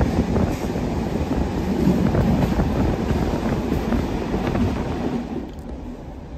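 Sleeper train running along the track, heard from inside the carriage: a steady rumble with faint clicks of the wheels. The sound drops quieter about five seconds in.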